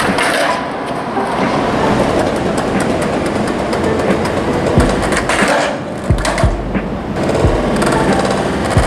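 Skateboard wheels rolling on a concrete path with a rattling clatter, broken by several sharp wooden board knocks from about halfway through, the pops and landings of 360 flip attempts, and another near the end.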